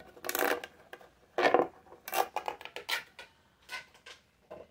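A plastic pop tube fidget toy being stretched and squeezed: its ribbed tube sections snapping open and shut, about seven short crackling bursts at uneven intervals, the first the longest.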